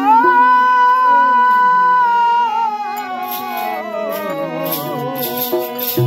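Devotional bhajan singing with harmonium accompaniment. A long high note is held, then the melody steps down, and sharp percussion strikes join about halfway through.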